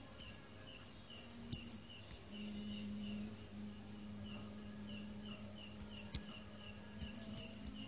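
An insect, cricket-like, chirping steadily about three times a second over a low steady hum, with a few sharp clicks scattered through, two of them louder than the rest.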